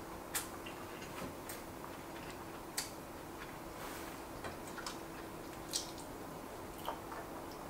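Dwarf rabbit nibbling dry food from its bowl: faint, irregular crisp crunches and clicks, roughly one a second.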